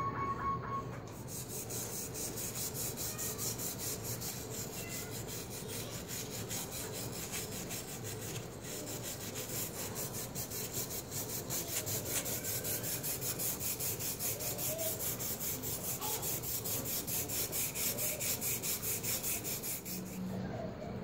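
Wire brush scrubbing back and forth along a rusted steel sword blade coated in cleaning paste, in quick, even strokes. The scrubbing starts about a second in and stops near the end.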